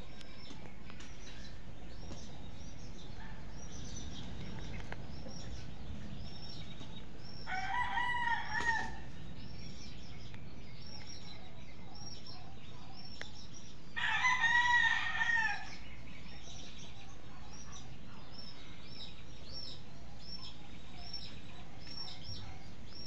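A rooster crowing twice, about 8 seconds and 14 seconds in, each crow lasting over a second, over a steady background of rapid high chirping.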